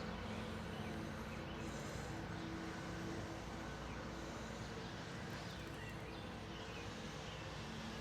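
Faint, steady outdoor background noise with a low hum and no distinct events.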